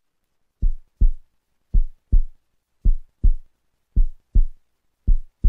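Heartbeat sound effect: five pairs of low lub-dub thumps, about one pair a second, with dead silence between them.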